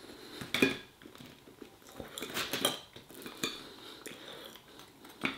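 Metal knife and fork clinking and scraping against a plate as food is cut, a few separate clinks spread over several seconds.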